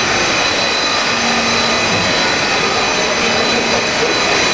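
Steady mechanical whir of a subway train standing at the platform with its doors open, with a few constant high tones in it, over the murmur of a crowd.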